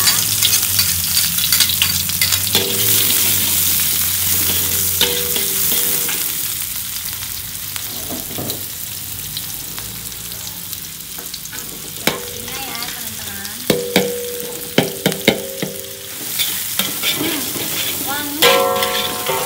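Sliced shallots frying in hot oil in a wok: a steady sizzle, with a metal spatula stirring and scraping against the wok and several sharp clinks in the second half.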